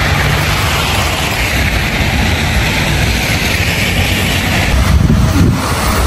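Street traffic on a slushy, snow-covered road: a steady hiss of tyres over a low rumble of passing cars. Near the end a heavy diesel truck engine, a city snow plow, runs close by.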